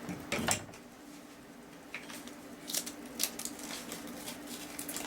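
A roll of sticky tape being handled and pulled, giving a string of sharp clicks and crackles over a faint steady hum.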